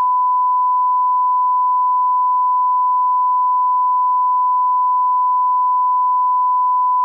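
Steady 1 kHz reference test tone, the single pure beep played with television colour bars, held at one unchanging pitch.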